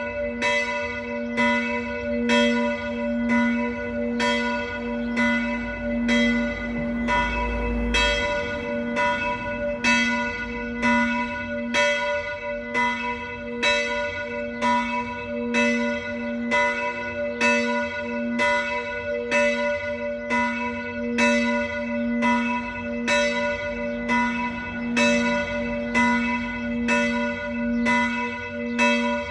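Church bells of a Reformed church ringing a full peal. Several bells strike in a steady, overlapping run of strokes, with their ringing tones hanging on between strokes.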